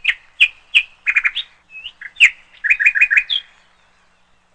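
Intro sound effect of quick, bird-like chirps: about a dozen short notes, some in fast runs of three or four, stopping about three and a half seconds in.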